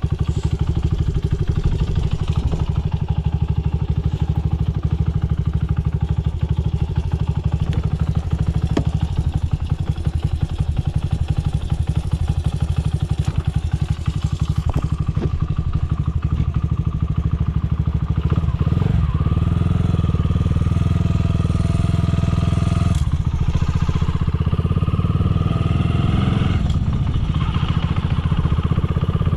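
Honda Ape 50 motorcycle with a swapped-in Ape 100 single-cylinder four-stroke engine running steadily through a Yoshimura titanium exhaust, a little louder from about two-thirds of the way in. It runs cleanly with no abnormal noise after a cold start.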